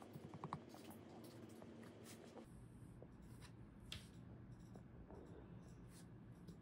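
Near silence: faint room tone with a few light taps and small handling sounds, one just after the start and another about four seconds in.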